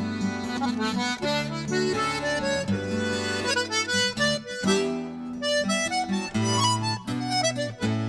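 Button accordion playing an Irish tune, a reedy melody over held bass chords.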